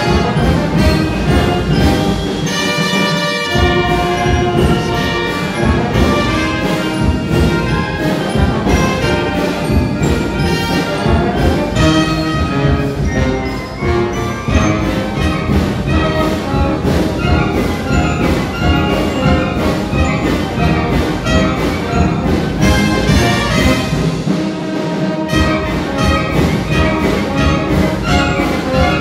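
Brass band playing a son: trumpets, trombones and sousaphones over timpani, with a steady beat.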